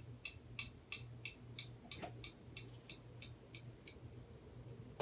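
Casablanca Panama II ceiling fan running on high in reverse: a low motor hum with a light tick about three times a second, which stops about four seconds in.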